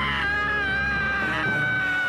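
A cartoon character's scream: one long, high-pitched yell held at a nearly steady pitch, over a low rumble.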